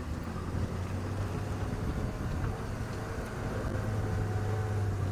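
Engine of an open safari game-drive vehicle running as it drives fast along a dirt track: a steady low drone, a little louder in the second half.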